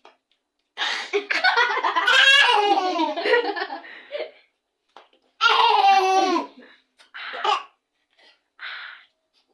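A baby making loud squealing, laughing vocal sounds, one long wavering stretch and then a shorter one, followed by two short breathy puffs near the end.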